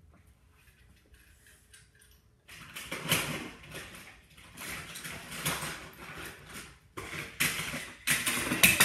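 Clattering and rustling of small hard objects being handled close to the microphone, starting suddenly about two and a half seconds in and going on in uneven bursts with sharp knocks.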